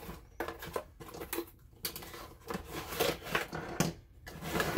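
Cardboard retail box being opened by hand: flaps and packaging rustling and scraping in uneven bursts, with a few light knocks as the contents shift inside.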